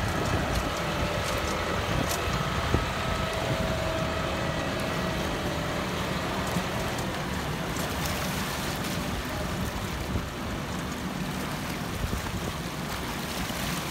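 A John Deere tractor's diesel engine running steadily as the tractor drives through shallow lake water, its tyres splashing, growing slightly fainter as it moves away.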